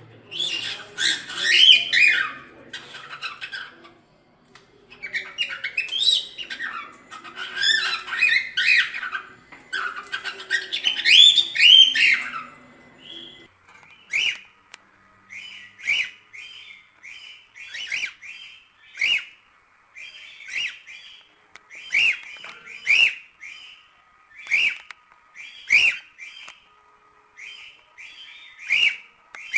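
Cockatiel singing: about thirteen seconds of rapid warbling, chattering phrases, then a steady series of short repeated chirps about one a second.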